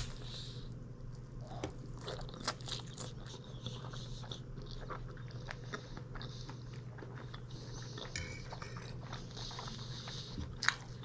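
Close-miked chewing and biting of a mouthful of food, with many small crunches and wet mouth clicks, over a steady low hum.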